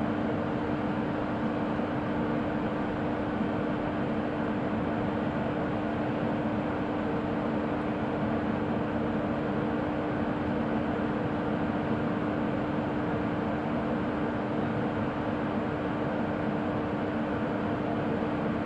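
WAP1 electric locomotive idling while energised: a steady machinery noise with one constant hum, no change throughout.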